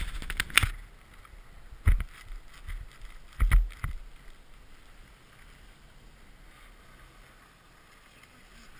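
Knocks and rustling of an action camera being handled, with wind on its microphone: a brief noisy scuffle at the start, heavy knocks about two and three and a half seconds in, then a faint steady hiss.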